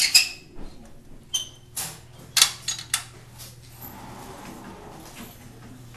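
Wire-mesh cat cages rattling and clanking: a quick series of sharp metal knocks over the first three seconds, then softer rustling, over a steady low hum.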